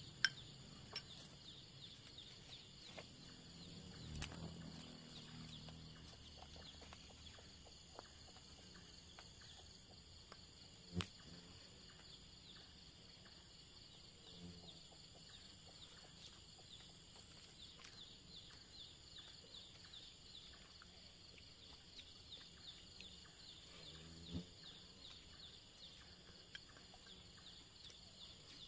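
Faint night chorus of insects: a steady high chirring in a rapid, even pulse, with a second thin steady whine above it. Scattered faint clicks, one sharper knock about eleven seconds in, and a few short low sounds.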